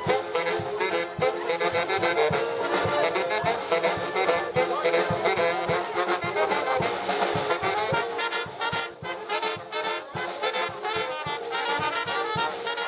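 German-style brass band playing live: trombones and trumpets carry the tune over a steady drum beat.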